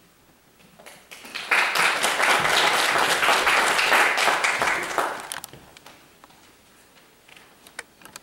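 Congregation applauding: the clapping starts about a second in, holds for about four seconds, then dies away into a few scattered claps.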